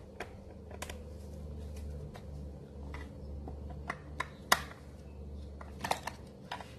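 Scattered sharp clicks and taps of a long screwdriver against the screws and plastic starter housing of a STIHL FS280 trimmer engine as the housing screws are checked for even tightness. The loudest click comes about four and a half seconds in, with a few more close together near the end, over a low steady hum.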